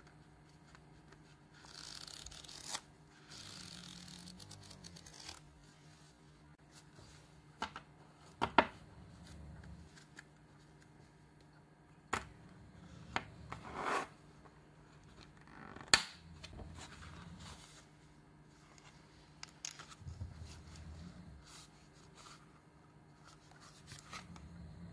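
Hole-punched mini refill paper rustling and sliding as the sheets are handled and fitted onto the clear plastic rings of a five-ring mini binder, with several sharp clicks from the binder, the loudest about a third and two-thirds of the way through.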